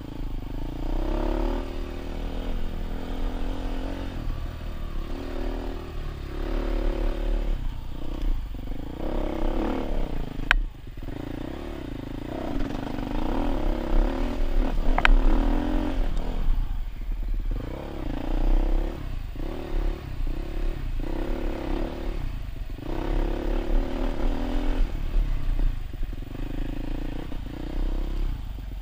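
Dirt bike engine under way on a rough trail, its pitch rising and falling as the throttle is opened and closed, with many short drops off the throttle. A sharp click sounds about ten seconds in.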